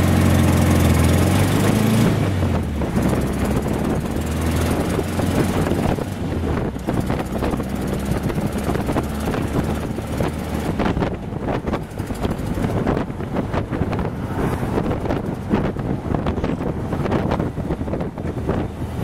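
Open dune buggy driving along a road. The engine note is clear for about the first two seconds, then mostly covered by gusty wind buffeting on the microphone.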